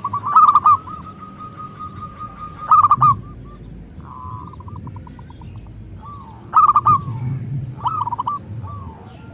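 Zebra dove (perkutut) cooing: quick clipped notes run into a long held coo, followed by a fast stuttering trill and more short coos near the end.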